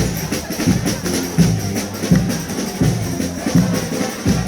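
Frevo played by a carnival street band, brass over drums and percussion, with a heavy beat about every 0.7 s.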